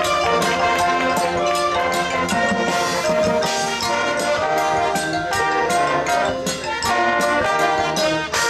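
Marching band playing: brass section sounding sustained chords and melody over a steady beat of drums.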